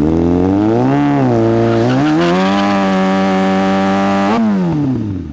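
Kawasaki Ninja ZX-6R inline-four engine revved hard for a burnout, the rear tyre spinning in place. The revs climb, dip briefly about a second in, climb again and hold steady for a couple of seconds, then fall away near the end.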